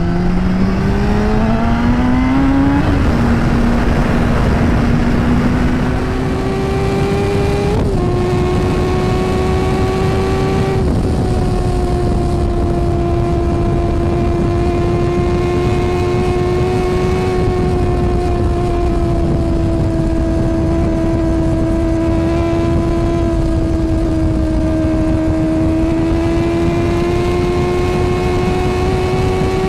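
Kawasaki ZX-10R inline-four sport-bike engine under way through an Akrapovič carbon slip-on exhaust. The revs climb over the first few seconds, it changes gear about three seconds in and again a few seconds later, then it cruises at fairly steady revs that drift slowly up and down.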